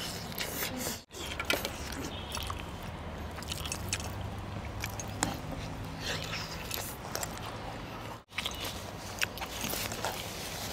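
Quiet background ambience: a steady low hum with faint voices and scattered small clicks and taps. It cuts to silence briefly twice, about a second in and again near the end.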